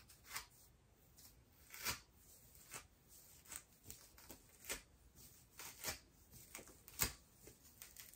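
Faint strokes of a plastic comb and hands brushing through thick natural hair, a soft rustling scrape about once a second.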